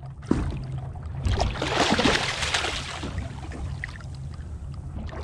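Water splashing beside a boat as a hooked black rockfish thrashes at the surface while it is grabbed by hand, loudest for a couple of seconds starting about a second in, over a steady low hum.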